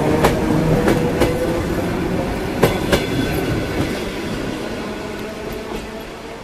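ER2R DC suburban electric multiple unit running past at speed, its wheels clicking over the rail joints in pairs. The running noise fades steadily as the train pulls away.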